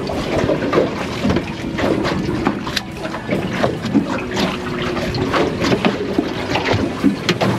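Water lapping and slapping against the hull of a small aluminium boat sitting on the water, with scattered knocks and clatter as gear is handled on deck.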